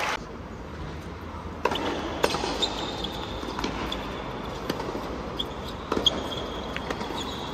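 Tennis ball bounced a few times on a hard court, then struck hard by a racket on a serve about six seconds in, with a quiet stadium crowd behind.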